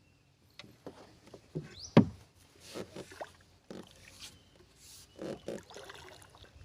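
A paddle working a small boat through water: irregular splashes and dripping, with wooden knocks against the hull and one sharp knock about two seconds in.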